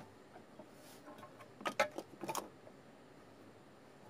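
A few light clicks and knocks from tools being handled on a wooden workbench, clustered about two seconds in.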